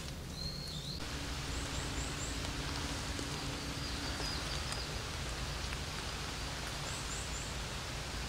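Steady outdoor hiss of woodland ambience that sets in suddenly about a second in, with brief high bird chirps shortly after and again near the end.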